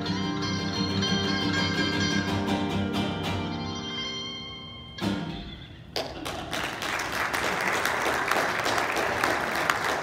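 Acoustic and electric guitars hold a final chord that rings and fades, closed by a last strum about five seconds in. A second later the audience breaks into applause.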